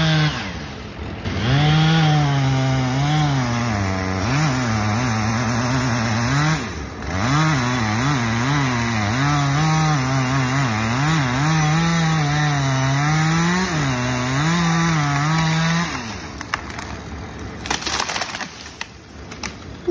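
Two-stroke chainsaw cutting through the trunk of a pine, its engine speed rising and falling as it bites, with brief throttle drops about a second in and again near seven seconds. About 16 seconds in the saw stops, and the tree cracks and crashes down through its branches.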